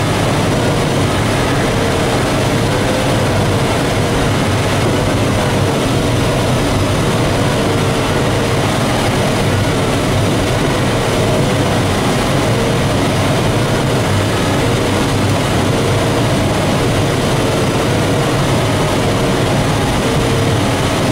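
Steady rush of air over the canopy inside an ASK 21 glider's cockpit in flight, with no engine. Faint short beeps repeat about every second and a half.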